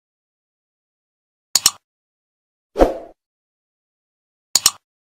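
Sound effects of an animated subscribe button: a sharp double mouse click about a second and a half in, a short duller thump about three seconds in, and another double mouse click near the end.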